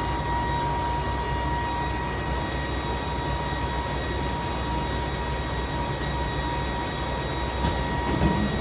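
Simec MEC 120 CNC tube saw running, a steady machine hum with a constant high whine. A couple of short clicks near the end.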